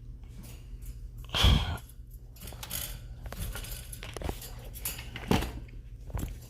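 Scattered clicks and light clattering of small hard objects being handled, with one louder thump about a second and a half in, over a low steady hum.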